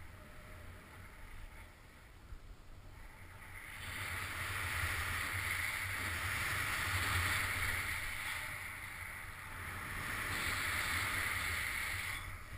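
Snowboard sliding over snow: the hiss of the board's base rushing through the powder, building about four seconds in, easing briefly, then rising again and dropping away near the end. A low rumble runs underneath.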